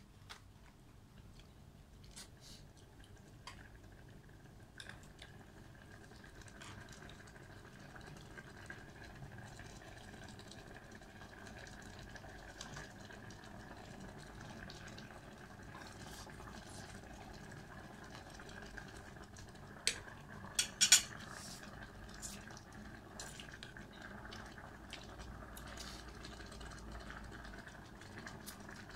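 Metal forks and spoons clinking and scraping against a stainless steel pot and a metal tray as noodles are served and eaten, in scattered light clicks, with a few sharp, louder clinks about twenty seconds in. A faint steady hiss runs underneath.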